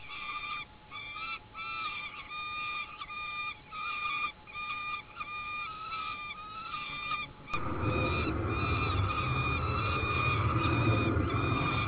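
Peregrine falcons calling at the nest during a feeding: a run of short, even-pitched wailing notes, about two a second. From about seven and a half seconds in, a low rumble joins them.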